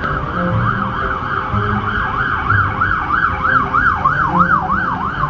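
Fire engine siren in a rapid yelp, its pitch sweeping up and down about three times a second, heard from inside a car.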